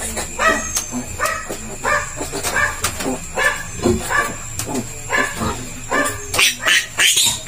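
Newborn piglet squealing again and again, about two short squeals a second, while it is held for an intramuscular iron injection. The squeals grow louder and shriller about six seconds in.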